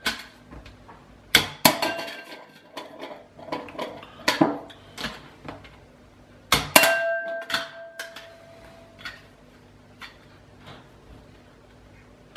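Small plastic toy ball flicked from a plastic catapult, knocking and clattering against a bowl. There are several sharp knocks, the loudest about seven seconds in, after which the bowl rings briefly. Lighter taps follow.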